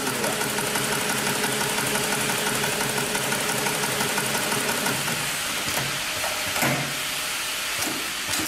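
Industrial computer-controlled pattern sewing machine running steadily as it stitches, its needle head working while the motor-driven clamp frame moves the work beneath it.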